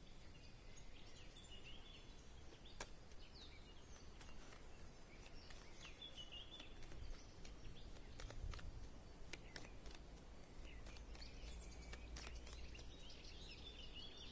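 Faint songbirds chirping and twittering over a low steady rumble, with a few sharp clicks scattered through.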